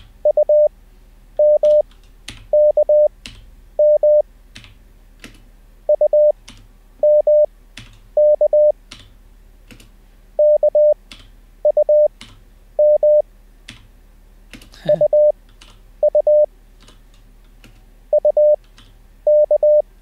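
Morse code practice tones: computer-generated 600 Hz beeps sending single characters (K, M, U of a Koch-method lesson) at 20 wpm character speed with long Farnsworth gaps between them, a character about every second. Computer keyboard keys click between the characters as each one is copied.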